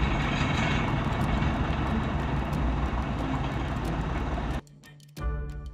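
Tractor engine running steadily, cutting off suddenly about four and a half seconds in; music with clear notes starts just before the end.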